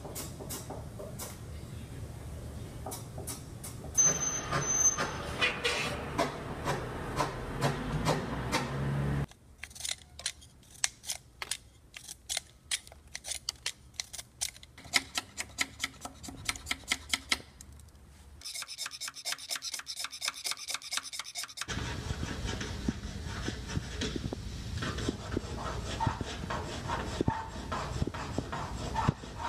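Scratchy strokes of drawing work: a pencil making marks on a paper-covered wall, then a utility knife shaving a dark drawing pencil in quick, sharp, repeated strokes from about a third of the way in, then more pencil strokes on the wall near the end.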